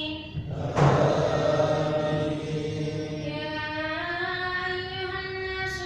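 A boy's voice reciting the Quran in long, drawn-out melodic phrases into a microphone. A brief loud rush of noise about a second in.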